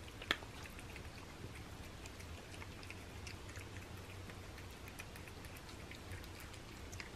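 Cats eating wet food (sardines) from paper plates: faint, scattered wet chewing and licking clicks, with one sharp click about a third of a second in.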